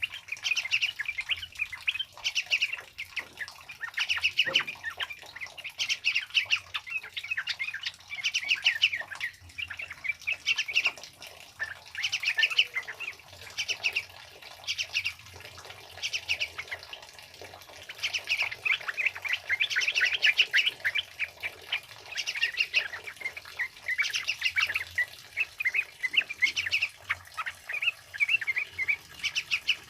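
Sooty-headed bulbuls (trucukan) singing in a rapid chattering run of bubbly notes, burst after burst every second or two.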